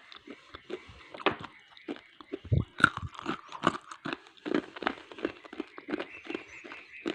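Close-up biting and chewing of hard dry clay pieces: a quick, irregular run of sharp crunches, the loudest a little under three seconds in.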